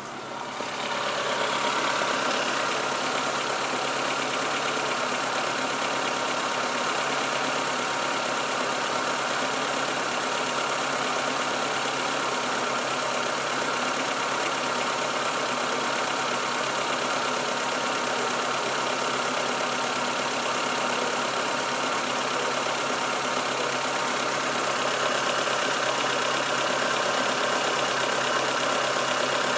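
Fiat Stilo 1.6 16V four-cylinder petrol engine idling steadily, growing louder over the first couple of seconds and then holding even.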